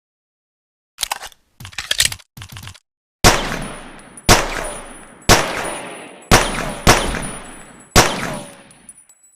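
Pocket pistol gunshot sound effect. A few short clicks, then six shots about a second apart, each sharp crack trailing off in a long echo. A thin high ringing tone runs on from just after the first shot.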